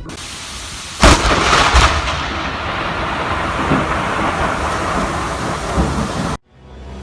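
Close lightning strike in heavy rain: steady rain hiss, then about a second in a sudden, very loud thunderclap with a second crack just after it, and the rain goes on until the sound cuts off abruptly near the end.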